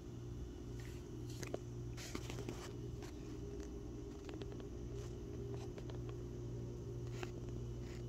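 Steady low hum with scattered soft clicks and ticks, a cluster of them between about one and three seconds in.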